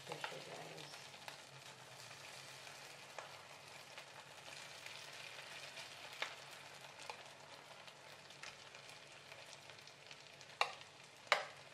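Egg, potato and onion omelette mixture sizzling faintly as it goes into hot olive oil in a non-stick frying pan. A metal spoon scrapes and clinks against the glass bowl, with two sharper clinks near the end.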